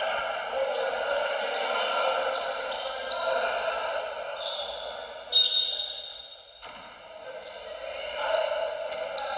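Echoing basketball-gym ambience: chatter of players and spectators with ball bounces. About five seconds in, a loud high-pitched tone sounds for just over a second and cuts off abruptly, followed by a brief dip in the background.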